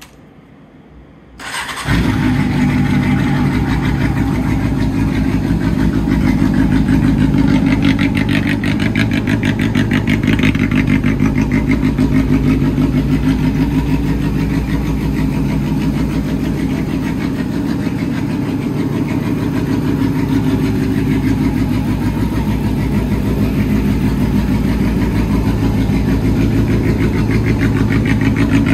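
Honda CB400 Super Four VTEC Spec3's inline-four engine, breathing through an aftermarket full exhaust system, cranked on the starter about a second and a half in and catching almost at once, then idling steadily.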